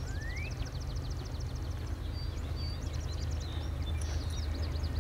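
Low, steady rumble of approaching BNSF diesel locomotives. Songbirds sing over it with rapid high trills and short rising whistles.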